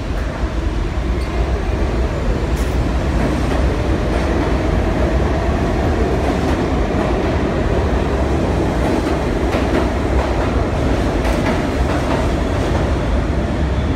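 R68 subway train accelerating out of the station past the platform: a loud, steady rumble of wheels and motors with a slowly rising whine, and a few sharp clacks from the wheels on the rails.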